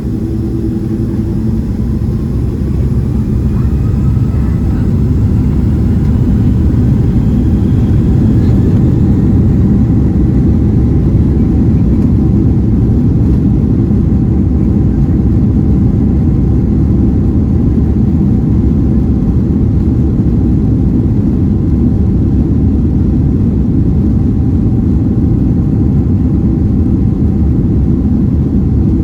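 Boeing 767-300ER jet engines spooling up to takeoff thrust, heard from inside the cabin: a faint rising whine over a low rumble that grows for about six seconds, then holds steady and loud.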